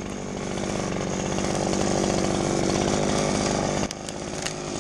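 Two-stroke chainsaw cutting into wood under load, running steadily and growing louder. Just before the end the level drops suddenly, with a few sharp clicks, and then the saw runs on more lightly.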